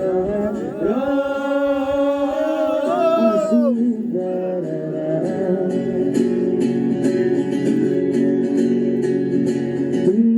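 Singing with acoustic guitar: a long held sung note that bends up and drops away a few seconds in, then steady strummed chords.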